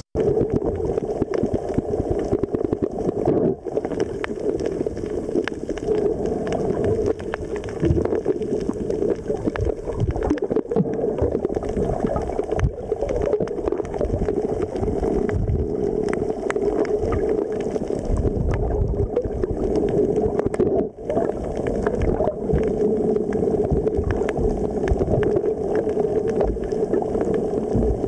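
Muffled underwater noise picked up by a submerged camera: a steady low rush and gurgle of moving water.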